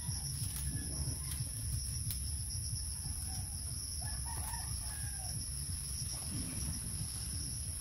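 A rooster crowing faintly around the middle, over a steady high-pitched insect drone and a low rumble.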